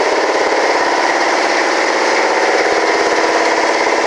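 Shop machinery running steadily: a loud, even mechanical drone with a fast pulsing that does not change.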